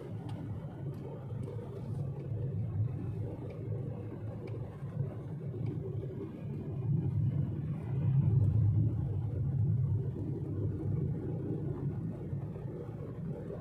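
Car cabin noise while driving on a paved country road: a steady low rumble of engine and tyres heard from inside the car, swelling a little about eight seconds in.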